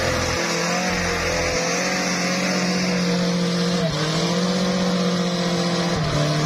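Mitsubishi T120SS mini pickup's engine held at high revs as the loaded truck pulls through slippery mud, the note staying steady with a brief dip in pitch about four seconds in.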